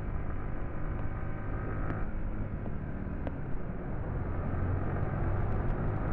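Motorcycle engine running at road speed with wind and road noise, riding through a road tunnel; the sound grows a little louder about four seconds in.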